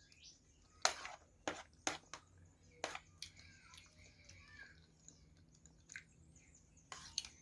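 Close-up eating sounds: chewing and wet mouth clicks, about eight short sharp ones spaced irregularly, the loudest about a second in.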